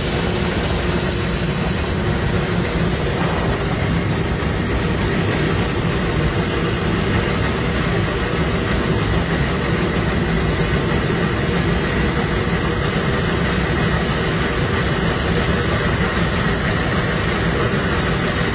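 Narrow-gauge NGG11 Garratt steam locomotive running along the line, heard from its footplate: a steady, loud rush of exhaust, running gear and wheels on rail.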